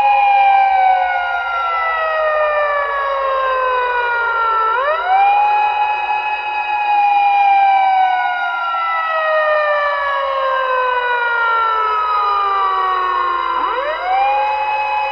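A siren wailing in slow cycles. Each time the pitch shoots up in about half a second, then sinks slowly over roughly eight seconds. A new rise comes about five seconds in and again near the end.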